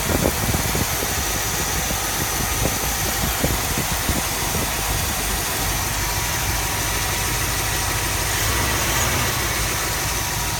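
Chrysler 318 V8 idling steadily and smoothly with its EGR valve disconnected, running without stalling. A few faint clicks sound in the first few seconds.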